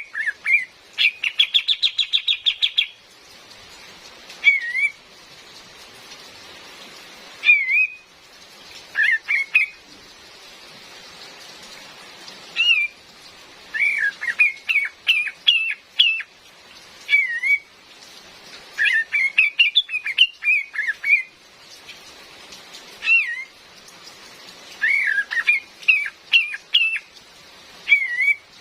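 A female kapas tembak bird calls repeatedly: short, sweeping whistled notes, some single and some in quick runs, with a fast chattering rattle about a second in. A steady hiss of rain runs underneath.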